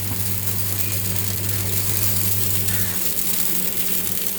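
Uttapam batter topped with chopped onion sizzling on a hot dosa tawa, a steady hiss, with a steady low hum underneath.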